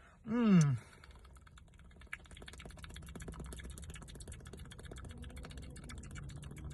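Fizzing of a freshly opened Mountain Dew Mango Rush soda: a dense, fast crackle of tiny bubble pops that grows slightly louder.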